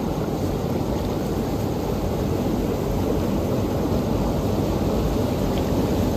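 Stream water flowing, a steady rushing noise without a break.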